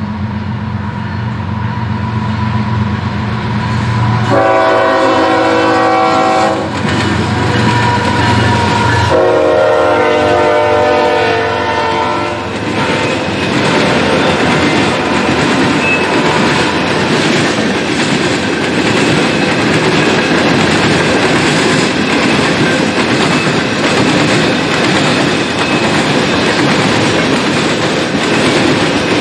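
A CSX diesel freight locomotive sounds two long blasts on its horn, about four and nine seconds in, over the steady running of its engine. A long train of hopper cars then rolls past, with continuous wheel noise and clickety-clack on the rail joints.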